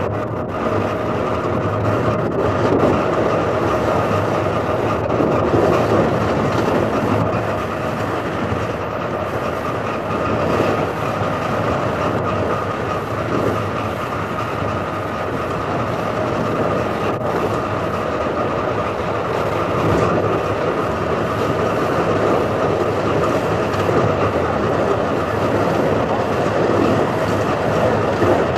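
A wooden-bodied Bradfield electric motor car of the old Sydney suburban trains running along the line. It makes steady running noise with a constant whine, and a few sharp clicks from the wheels.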